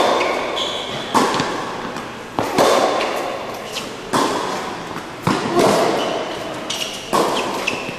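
Tennis ball and racquets in a rally on an indoor hard court: sharp racquet hits and ball bounces come roughly every second, each echoing in the hall, with a few short high squeaks between them.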